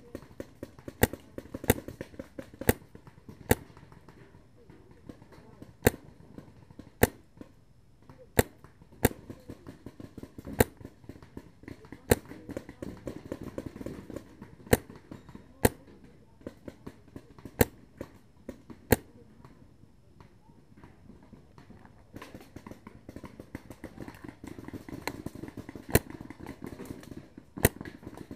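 Paintball markers firing: sharp single pops at irregular intervals of about a second, some loud and close, with fainter shots from farther off in between. The firing thins out for a few seconds past the middle, then picks up again.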